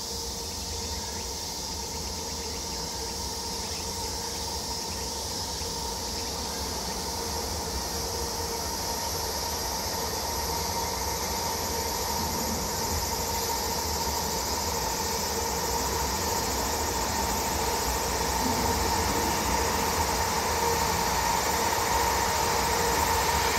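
A JR Freight EH500 electric locomotive hauling a freight train approaches from inside a tunnel. Its steady rumble and hum grow gradually louder as it nears, with insects chirring in the background.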